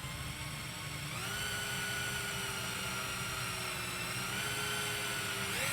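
Power drill running in reverse with its bit held against the guitar's finished wood body, so it rubs rather than digs in. The motor whine steps up in pitch about a second in, holds steady, then rises again near the end.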